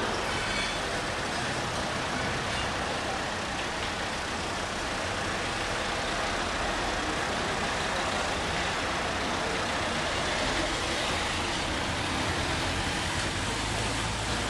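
Steady street traffic noise, with motor vehicle engines running on the street.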